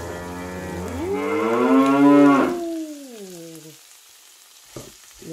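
A woman's long drawn-out "mmm" of relish over the food, rising and then falling in pitch for about four seconds before fading out.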